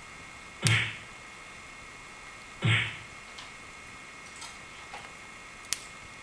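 Wood fire burning in a fireplace: two loud pops about two seconds apart, a few faint crackles, and one sharp snap near the end.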